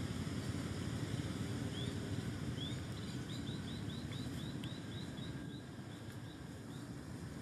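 A steady low rumble, with a quick run of short, high-pitched rising animal chirps starting about two seconds in, about three or four a second, fading out near the end.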